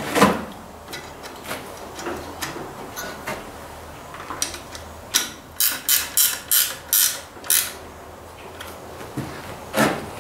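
Hand tools working on a tractor's alternator mounting: scattered clicks and knocks, with a quick run of about seven sharp clicks in the middle.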